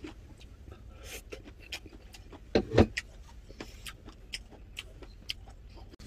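Scattered small clicks and taps of chopsticks on a bowl as someone eats, with two louder knocks a little before the three-second mark, over a steady low rumble.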